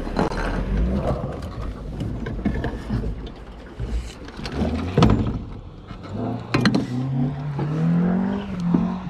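Low rumbling wind noise on the microphone with a few sharp knocks, then a small motor whose pitch rises and falls over the last few seconds.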